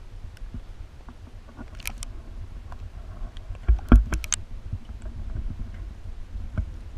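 Muffled water sounds of a camera in a waterproof housing moving at and just under a river's surface: a steady low rumble with scattered clicks and knocks on the housing, the loudest a thump about four seconds in.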